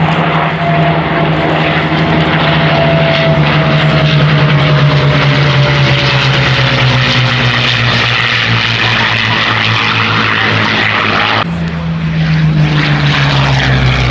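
Merlin V12 piston engines of a Supermarine Spitfire Mk IX, Hawker Hurricane XII and P-51D Mustang flying past in formation: a loud, steady propeller-engine drone with a whine that slowly falls in pitch as they pass. The sound breaks off sharply about eleven seconds in, and the engine drone carries on after it.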